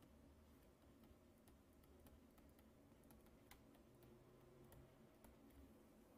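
Near silence: faint scattered ticks and clicks of a stylus tapping and writing on a pen tablet, over a faint steady low hum.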